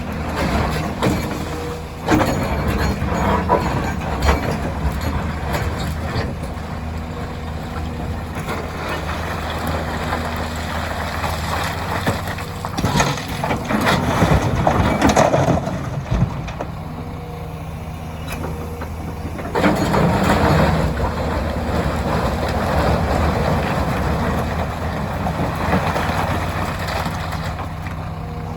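Diesel engines of a Hyundai 300LC excavator and a dump truck running steadily while loading. Several rushes of rock and gravel pour into the truck bed, one about two seconds in, another in the middle and another about twenty seconds in.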